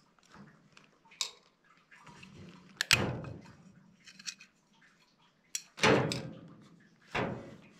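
Metal clunks as an electric blower motor and its sheet-metal mounting plate are handled and set down on a hard surface. There are four or five separate knocks, the loudest about three seconds in and about six seconds in, each ringing briefly.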